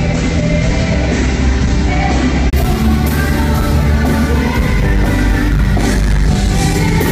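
Live band with electric guitar and keyboard playing a rock song, with women's voices singing lead through the stage PA.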